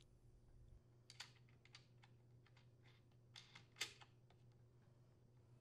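Near silence with a few faint, light clicks as metal flange nuts are turned by hand onto a chainsaw's bar mounting studs against its plastic clutch cover: a small cluster about a second in and another just before four seconds.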